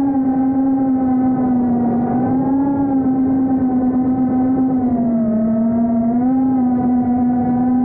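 Brushless motors and 3.5-inch propellers of a GEPRC Smart 35 HD FPV quadcopter whining steadily in flight, recorded by the camera mounted on the drone. The pitch wavers with the throttle, sagging about five seconds in and climbing again a second later.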